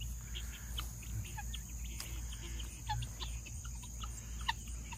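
Steady high-pitched insect chorus, with many short scattered chirps over it, the sharpest about four and a half seconds in.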